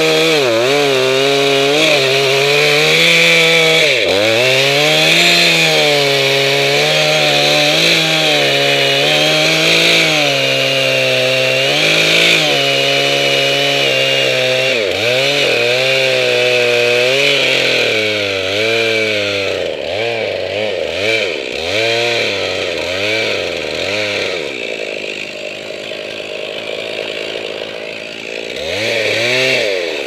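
Chainsaw running at high revs close by, its engine note sagging and recovering again and again. From about eighteen seconds in it is blipped up and down, drops to a lower, quieter running after about twenty-five seconds, and revs up once more near the end.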